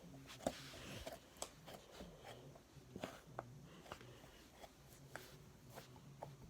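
Slime being handled, giving faint, irregular sticky clicks and small pops, the sharpest about half a second in.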